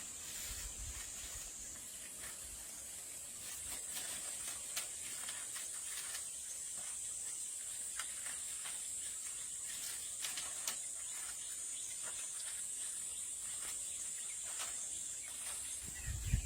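Steady high-pitched hiss with scattered faint clicks.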